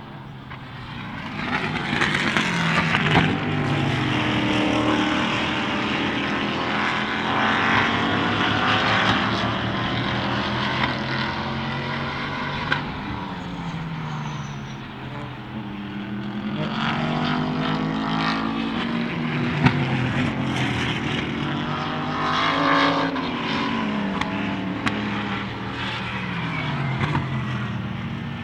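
Endurance race cars passing one after another at speed. Their engine notes rise and fall in pitch in several waves as each car goes by and shifts gear.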